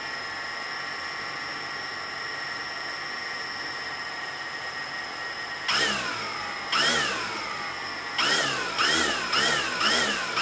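The four new T-Motor MN2214 brushless motors and propellers of a DJI Phantom Vision quadcopter, running on the bench. They idle with a steady whine, then about halfway through are revved in about six short throttle blips, each a quick rising-then-falling whine. They are responsive and really smooth sounding.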